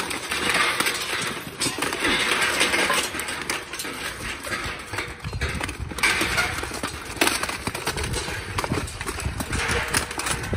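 Steel plate armor clanking and scraping as armored fighters grapple and shove against steel panel fencing, with many sharp knocks and rattles of metal on metal.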